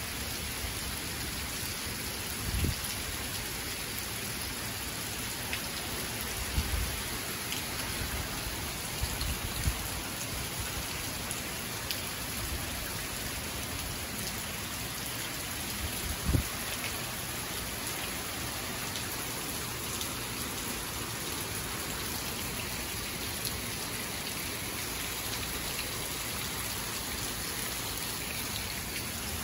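Steady tropical-storm rain falling, with a few brief low thumps scattered through it, the loudest about 16 seconds in.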